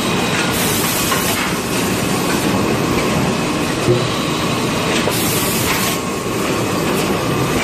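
Automatic toilet-paper bundling and packing machine running with a steady mechanical rattle. A hiss lasting about a second comes half a second in and again about five seconds in, and there is a single knock about four seconds in.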